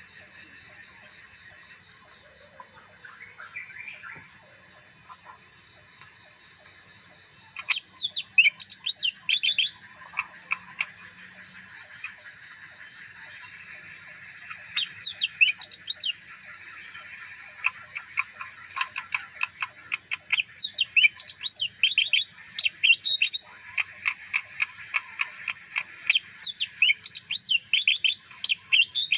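Leafbird singing in bouts of rapid, sweeping chirps and twitters, separated by short pauses, over a steady high-pitched background tone.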